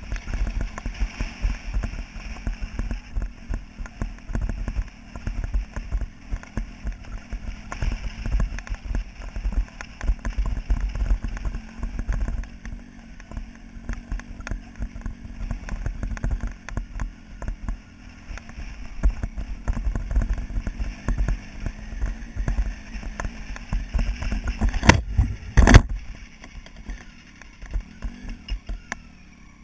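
Motorcycle ridden over a rough gravel track: the engine running under a constant, uneven low rumble from the jolting ride, with two sharp knocks near the end.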